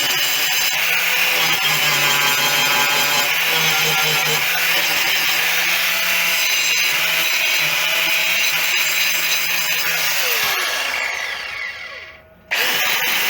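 Hand-held angle grinder running steadily under load, then switched off about ten seconds in, its pitch falling as it spins down. The same grinding noise comes back suddenly near the end.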